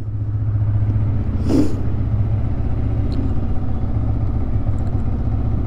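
Yamaha R15 V3's 155 cc single-cylinder engine idling steadily with its automatic fast idle held high just after starting, warming up before the ride. A brief rushing noise passes about a second and a half in.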